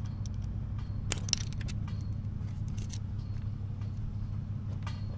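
Faint metal clicks and scraping of a small pick working at the tiny retaining clip on a transmission cooler line fitting at the bottom of a radiator: a cluster of quick ticks about a second in and a few more later, over a steady low hum.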